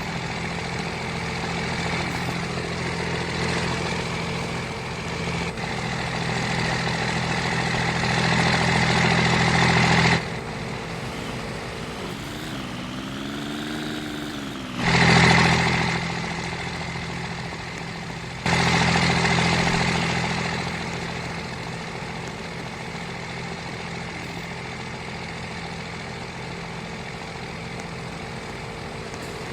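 An engine running steadily with a low hum, cutting abruptly to a different level a few times, with a pitch that briefly rises and falls near the middle.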